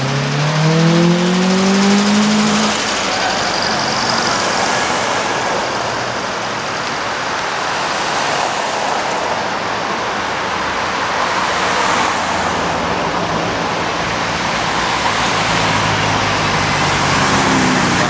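Cars in a procession passing one after another. In the first few seconds a classic VW Beetle's air-cooled flat-four engine climbs in pitch as it accelerates past. Then comes a steady mix of engine and tyre noise from the following cars, with another engine note coming in near the end.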